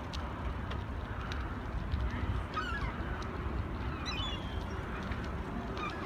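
Gulls calling: a quick run of calls about two and a half seconds in and another short run about four seconds in, over a steady low rumble.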